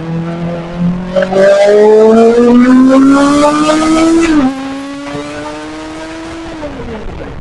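Kawasaki ZX-25R's 250 cc inline-four engine pulling hard, its note rising steadily in pitch for about four seconds, then dropping sharply, holding briefly and winding down near the end.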